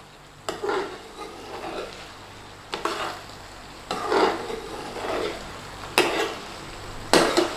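A utensil stirring and scraping through a thick curry sauce in a hot pan, with a scrape every second or so over a low sizzle as the chicken jalfrezi cooks down.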